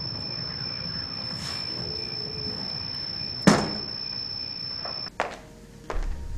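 A door shut with a single sharp thunk about three and a half seconds in, over steady hiss with a faint high whine. Near the end the hiss cuts off and low music begins.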